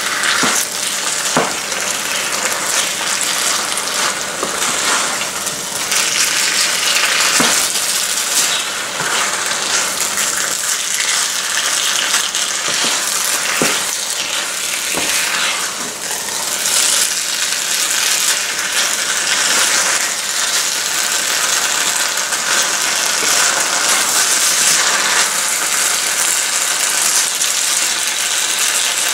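Chicken with peppers and onions sizzling in a nonstick frying pan while being stirred with a wooden spatula, the spatula knocking against the pan a few times.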